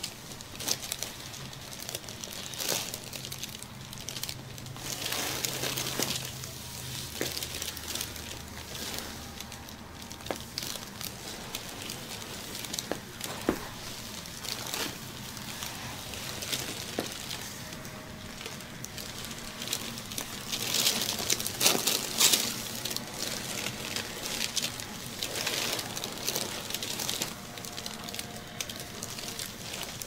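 Massage: hands rubbing and kneading over skin and clothing, with uneven rustling and crinkling swells and a few small clicks. A low hum runs under the first six seconds.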